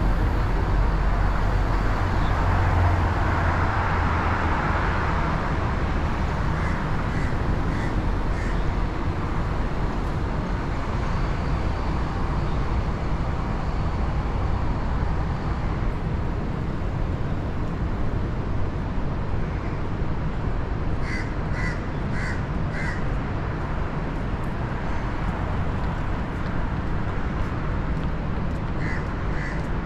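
A crow cawing in short runs of three or four calls, over steady street traffic noise that swells for a few seconds near the start.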